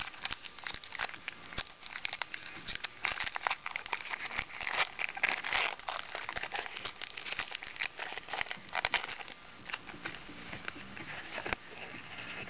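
Foil Pokémon TCG booster pack wrappers crinkling and being torn open, a dense, irregular run of crackles that thickens a little before the middle.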